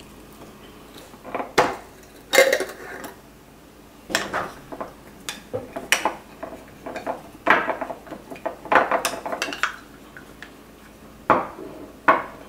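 A wooden spoon knocking and scraping against the inside of a glass jar of olives while fishing the olives out: a run of irregular clinks and knocks, with sharper ones about two seconds in and near the end.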